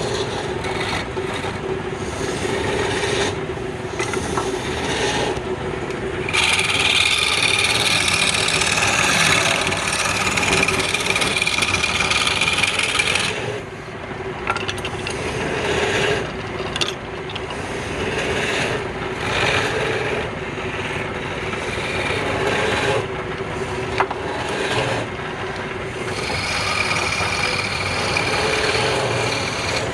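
Wood lathe running with a steady hum while a turning tool cuts and scrapes the spinning wood. The cutting hiss comes in passes, loudest for several seconds a fifth of the way in and again near the end.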